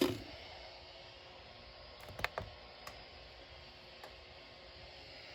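A few faint clicks from a computer mouse and keyboard over quiet room hiss; the loudest two come close together about two seconds in, with single lighter clicks after.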